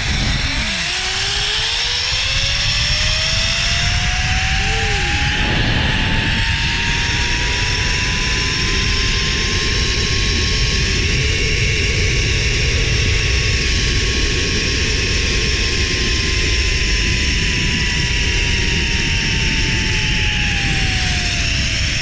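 Zip line trolley's pulley wheels running along the steel cable: a whine that rises in pitch over the first several seconds as the rider picks up speed, holds steady, then drops near the end as the trolley slows. Heavy rushing wind noise on the microphone underneath.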